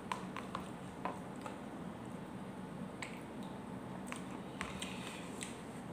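Scattered small clicks and taps of a metal spoon working in a cup of instant noodles, with soft eating sounds, over a steady low hum.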